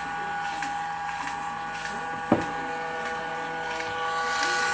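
Porter-Cable 2610 drill motor running at a steady speed, a constant whine with several pitched tones. A single sharp click about two seconds in.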